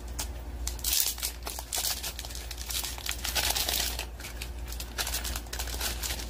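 Crinkling of a plastic wrapper around a stack of Magic: The Gathering cards being opened and handled. It comes in irregular rustles, loudest about a second in and again around three to four seconds.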